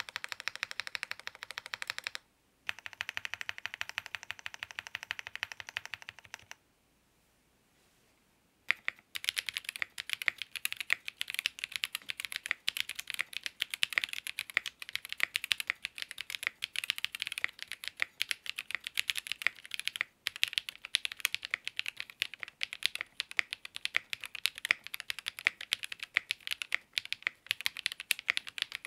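Fast typing on a mechanical keyboard fitted with Ceptify linear switches (Snowfox and Rooster) in a ZoomTKL with an FR4 plate and GMK keycaps. This is a sound test of stock and lubed switches. The typing stops briefly about two seconds in, pauses for about two seconds from six and a half seconds in, then runs on steadily.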